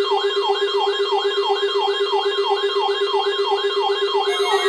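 Emergency Alert System attention tone for a weekly test: a warbling, siren-like sweep repeating about three times a second over a steady low tone. About four seconds in, more steady tones join.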